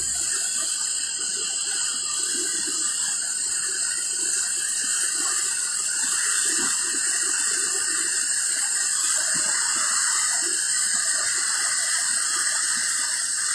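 Floodwater of the swollen Moctezuma River rushing steadily past beneath a bridge: a strong, fast current.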